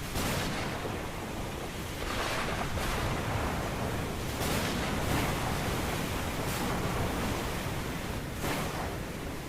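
Ocean surf: waves breaking and washing in as a continuous rushing noise, with a fresh surge about every two seconds.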